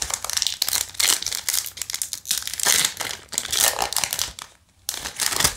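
Foil Yu-Gi-Oh! Dawn of Majesty booster pack wrapper crinkling in the hands and being torn open, in a run of rustling bursts. There is a short pause about four and a half seconds in, then one more burst.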